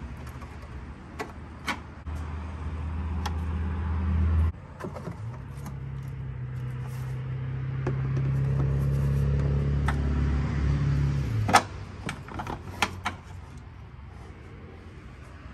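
A low steady mechanical drone that swells over several seconds and cuts off abruptly, twice. Scattered light clicks and rattles come from a plastic taillight housing and its wiring being handled and eased off the car.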